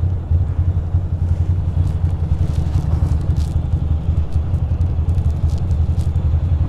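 2006 Ducati Monster 620's air-cooled L-twin engine idling with a low, pulsing rumble while the bike is walked backwards into a parking spot.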